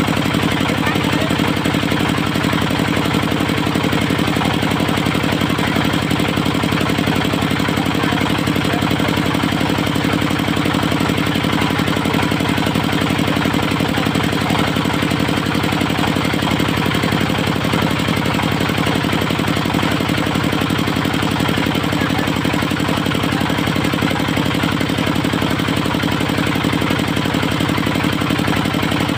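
Diesel engine of a portable circular-saw sawmill running steadily at an even speed, with a fast, regular firing beat.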